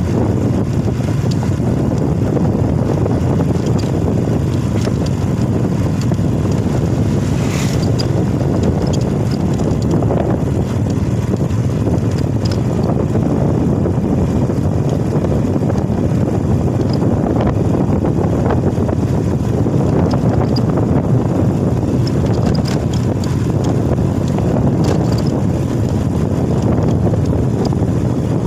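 Loud, steady wind rush buffeting the microphone of a motorcycle on the move, with the bike's running sound mixed into it. A single sharp tick about seven and a half seconds in.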